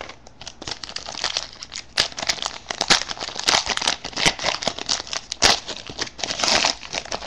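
Foil wrapper of a 2011 Topps Finest football card pack crinkling and tearing as it is opened by hand, a dense run of irregular crackles.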